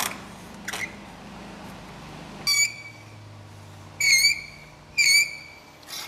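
A marker squeaking as it is drawn along a speed square on a steel plate: three short high squeaks in the second half, after a brief scrape at the start.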